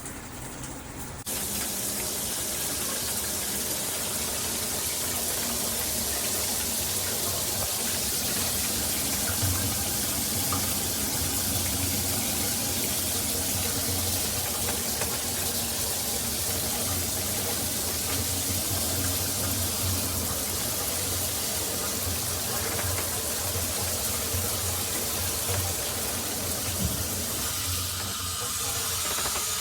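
Shower head spraying water, a steady rushing hiss that starts abruptly about a second in as the water comes on.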